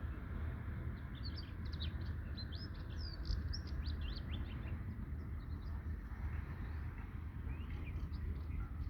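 Small birds chirping: a quick run of short high chirps for about three seconds, then fainter, scattered chirps. A steady low rumble runs underneath.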